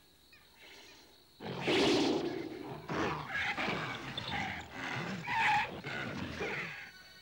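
Growls and snarls of a black panther attacking a wolf in an animated fight. The first second and a half is almost silent, then the noise comes in loud and rough, rising and falling irregularly to the end.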